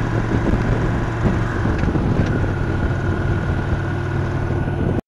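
Victory Cross Roads Classic LE's 1700 cc V-twin engine running steadily as the motorcycle cruises along the road, with wind rushing past. The sound cuts off abruptly near the end.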